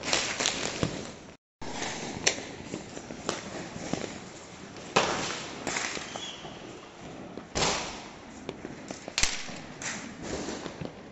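Diwali firecrackers and fireworks going off around the neighbourhood: repeated sharp bangs and bursts of crackling at irregular intervals, the loudest bangs about halfway through and again near the end.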